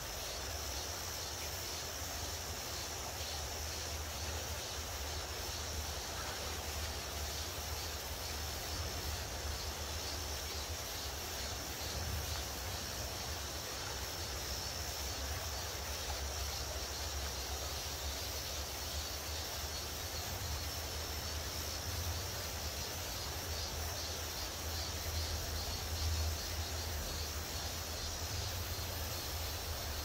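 Shallow mountain stream running over rocks: a steady rushing with a low rumble underneath.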